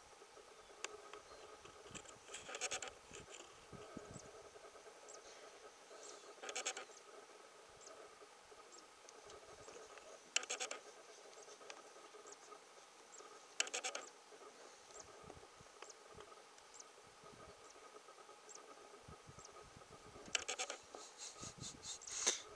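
African elephants pulling up dry grass with their trunks: short rasping, tearing crackles every few seconds, a longer run of them near the end, over a faint steady hum.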